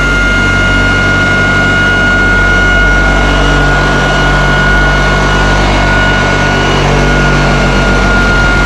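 Electric orbital floor sander with a square pad running steadily on deck boards, its motor giving a loud, even hum with a high steady whine over it.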